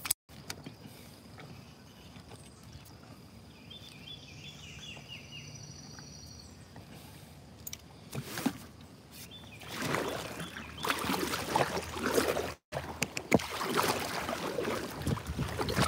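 Choppy lake water lapping and splashing against an inflatable boat's hull. It is faint at first, then rougher and louder from about eight seconds in.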